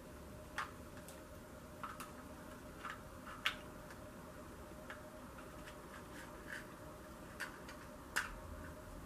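Faint, irregular small clicks and taps, about ten of them scattered, the clearest about three and a half seconds and eight seconds in, as hair is wound around foam perm rods by hand. Under them is a steady faint hum.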